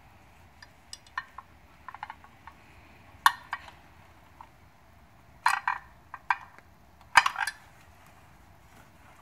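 Scattered metal clinks and knocks as a pair of new Eaton truck brake shoes and their coil return spring are handled and hooked together, with a few sharper knocks among lighter taps.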